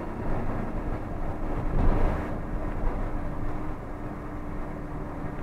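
Cabin noise of a moving double-decker coach: steady engine and road rumble with a faint steady hum, and a louder bump about two seconds in.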